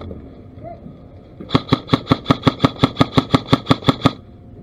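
An airsoft rifle firing a full-auto burst of about twenty shots at roughly seven or eight a second, starting about a second and a half in and stopping just after four seconds.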